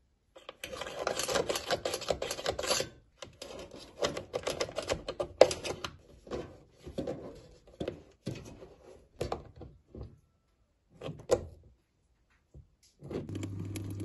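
Hands and pliers working rubber inlet hoses and metal spring clips onto the plastic nozzles of a washing machine's detergent dispenser: irregular clicking, scraping and rattling of metal on plastic, in bursts with pauses. Near the end, water starts running into the dispenser with a low steady hum.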